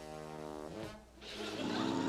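Deep, horn-like cartoon frog croak: one steady low note of under a second, followed by background music.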